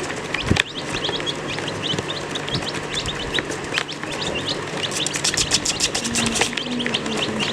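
A group of baby chicks peeping continuously, many short high chirps overlapping. A thump about half a second in, and a quick run of sharp clicks around five seconds in.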